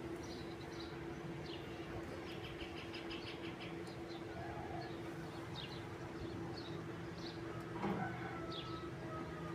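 Wild birds chirping: scattered short, high calls and a brief fast trill of repeated notes about two seconds in, over a steady low hum. There is a single knock near the end.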